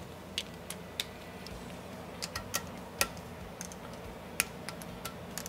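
Scattered sharp metallic clicks, some in quick groups of two or three, from a ratcheting inch-pound torque wrench being worked on bolts at the top of an engine as they are tightened and torqued.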